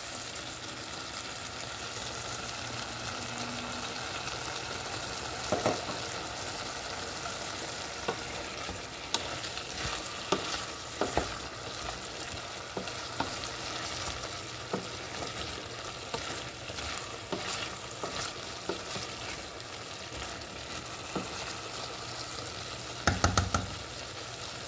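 Diced beetroot curry sizzling and steaming in a stainless steel saucepan, its cooking water boiled down, while a wooden spoon stirs it with scattered scrapes and knocks against the pan. A quick run of spoon knocks comes near the end.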